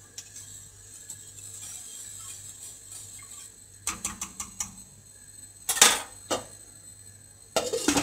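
Wire whisk stirring soup in a stainless steel pot, with light scraping at first. Then come a few sharp metal clinks against the pot, the loudest about two-thirds of the way in. Near the end there is a clatter as a glass pot lid is set on the pot.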